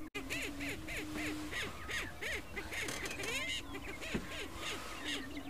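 Greater prairie chickens on a lek: a low, steady booming note held for over a second at the start and again from past halfway, over quick cackling calls at about four or five a second.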